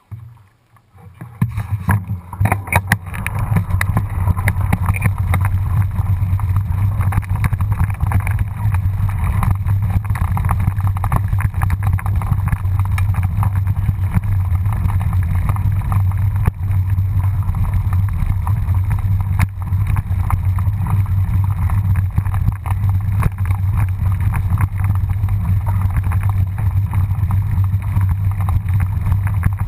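Wind buffeting the microphone of a mountain bike rider's camera, mixed with the rattle of the bike rolling down a rough dirt track. It starts about a second and a half in as the ride gets under way, then runs steadily.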